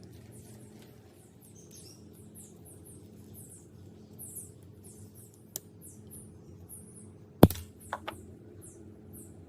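A single loud knock about seven seconds in, followed closely by two lighter clicks, with one earlier sharp click, over a steady low hum and a run of short high chirps repeating several times a second.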